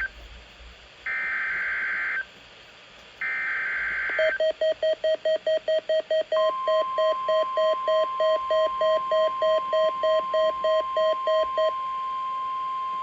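NOAA Weather Radio alert tones for a Required Weekly Test: buzzy bursts of SAME digital header data, each about a second long, the last two near 1 s and 3 s in. A pulsing electronic beep follows at about four a second until near the end, and a steady single-pitched tone starts about 6 s in and holds through the end.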